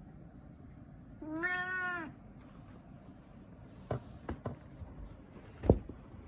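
A domestic cat gives one meow, held for under a second at a fairly even pitch and dropping at the end. A few short knocks follow, the last and loudest a thump near the end.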